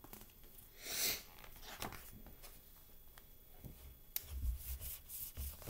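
A picture book being handled and its page turned: a soft swish about a second in, then light clicks and dull low knocks near the end.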